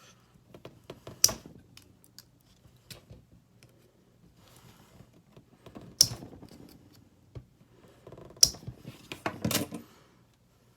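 Small metal clicks and scrapes of a new folding multitool being handled as fingers try to pry out its stiff awl blade, with four sharp snaps about a second in, midway, and twice near the end.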